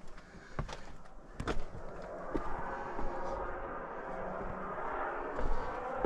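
Hiking footsteps on a rocky trail, a few sharp crunches, over a steady rushing noise that swells from about two seconds in, like tyre noise of traffic passing on a highway.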